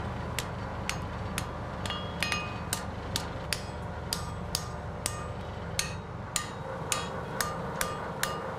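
Blacksmith's hammer striking a punch into a red-hot steel horseshoe on the anvil to punch the nail holes: steady blows about two a second, each with a short metallic ring, over a low steady hum.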